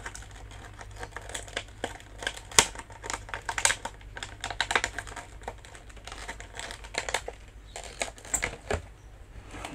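Toy packaging being handled and opened by hand: irregular crinkling and crackling of the figure's box and wrapping, in quick clusters of sharp clicks, over a low steady hum.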